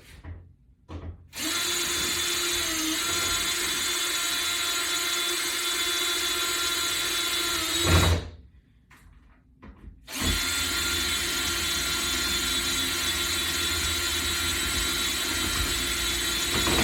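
Power drill running into wood in two long steady runs of about seven seconds each, separated by a two-second pause, with a steady whine throughout.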